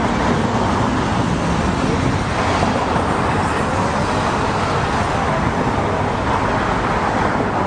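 Steady road traffic noise: the even rumble and hiss of many cars in dense traffic, with no single vehicle standing out.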